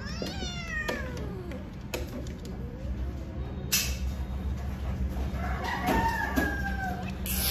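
Cat yowling while mating: a long drawn-out call that falls in pitch at the start, another held call that drops off about six seconds in, and a third beginning right at the end.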